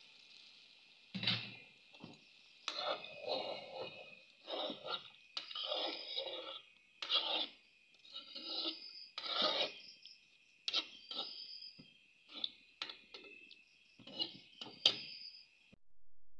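A pot of fish curry on the stove, with a faint steady hiss and a run of short, irregular rasping scrapes, roughly one a second.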